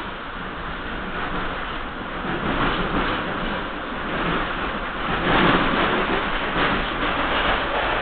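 Hawker Siddeley H5 subway car running on the track, a steady rumble and hiss of wheels on rail heard from inside the car, growing louder about five seconds in.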